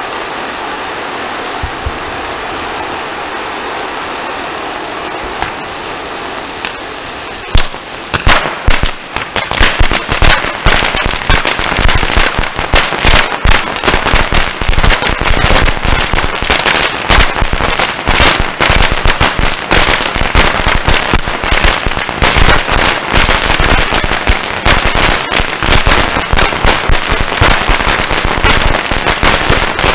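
A fountain firework gushes with a steady hiss. After about seven seconds a crackling fountain takes over, giving a dense, rapid run of sharp pops and crackles that go on to the end.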